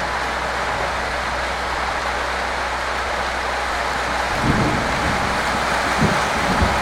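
Steady rain falling, an even hiss on the wet car park and its corrugated metal carport roofs. A few short, low thuds come through in the second half.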